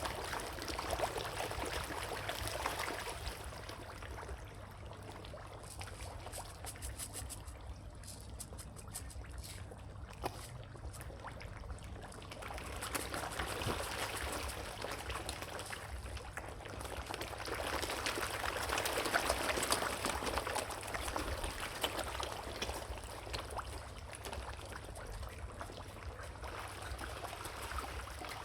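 Water splashing and trickling, swelling louder and fading back in waves, over a steady low hum.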